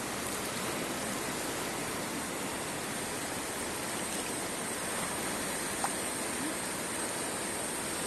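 A wide river rushing steadily over shallow rapids and rocks, an even, continuous water noise. A single brief click sounds about three-quarters of the way in.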